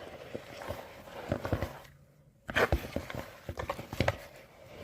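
Irregular clicks and knocks from handling things, with a brief lull about two seconds in and a louder cluster of knocks just after it.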